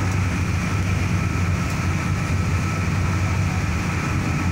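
Steady road and engine noise of a moving vehicle heard from inside it, mostly low-pitched and even throughout.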